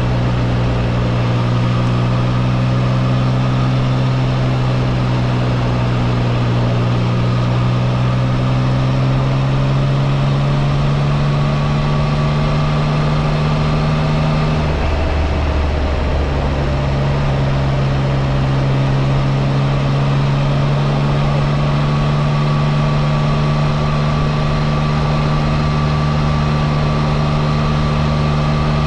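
Triumph Trident 660's inline-three engine running steadily under light throttle while the motorcycle cruises. About halfway through, the engine note drops for a second or two, then settles back to the same steady note.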